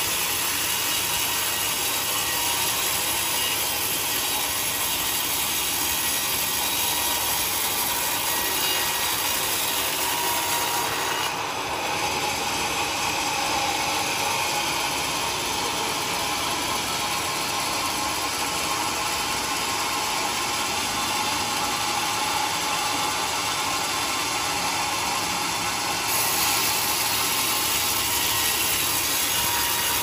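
Vertical band saw cutting lengthwise through a teak log: a steady, continuous noise of the running blade sawing through the wood.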